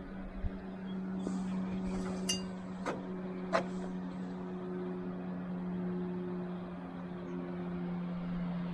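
A steady mechanical hum with a low drone and fainter higher tones over it. Three or four sharp clicks or clinks come between about two and four seconds in.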